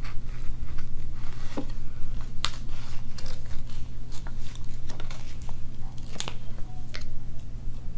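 Scattered light clicks and crinkles of a paper sticker sheet and a cardboard playset box being handled, over a steady low hum.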